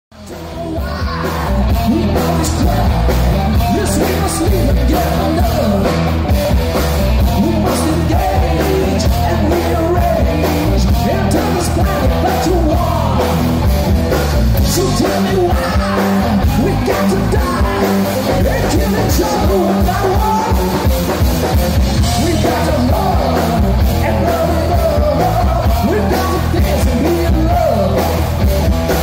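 Live rock band playing: electric guitars and drum kit with a man singing lead, fading in over the first second or so.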